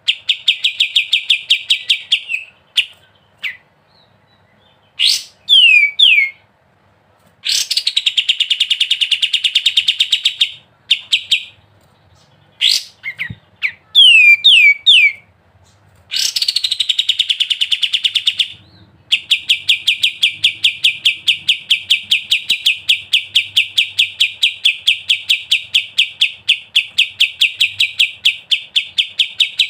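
Kapas tembak bird singing in long, rapid rattling trills (the 'ngebren' style), each run lasting several seconds. Short falling whistled notes fill the breaks between runs, and a long unbroken trill starts about two-thirds of the way through.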